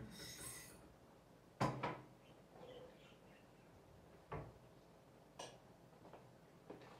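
A few separate knocks and clinks of glass jars being handled on a kitchen counter, the loudest about one and a half seconds in, with a short hiss at the very start.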